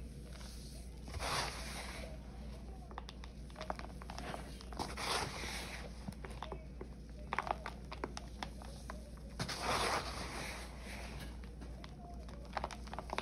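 Dried Ajax, Pine-Sol and Palmolive cleaning-powder paste being crushed by hand, the crumbly lumps crackling and the loose powder sifting and pattering back into a plastic tub. It comes in several separate scoops, each a short swell of gritty hiss with small crunches.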